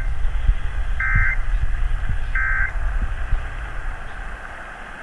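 Emergency Alert System end-of-message code (SAME EOM) coming in over AM radio: short buzzy bursts of digital data tones about a second apart, closing the monthly test. Under them runs a steady low rumble and static hiss from the radio reception, which fades down about four seconds in.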